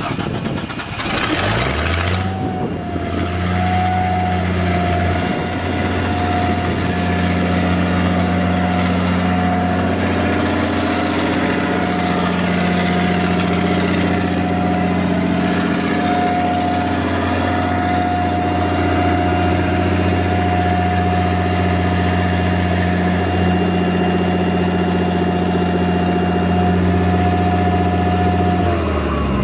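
Ford inline-six natural gas engine of a 39 kW Spectrum Detroit Diesel generator set starting up in the first two seconds, then running at a steady speed with a steady whine above the engine note. Its pitch begins to fall at the very end.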